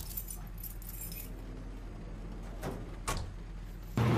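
Metal jingling for about the first second, two sharp knocks near the three-second mark, then a bus engine running loudly from about four seconds in.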